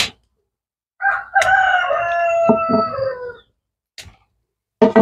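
A rooster crows once about a second in, a long call that falls slowly in pitch and lasts over two seconds. Short sharp knocks sound at the start and again near the end.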